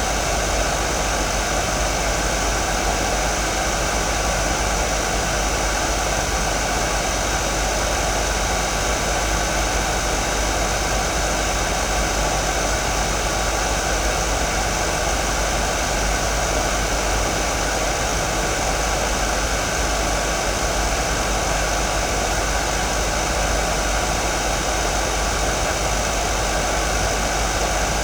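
Hair dryer running continuously on a steady setting: an even rush of blown air with a few faint steady tones from the motor and fan, unchanging in level.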